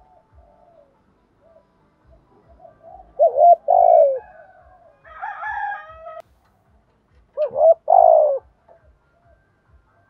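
Spotted dove cooing: two loud phrases of about a second each, about three and seven and a half seconds in. A higher, thinner bird call comes between them.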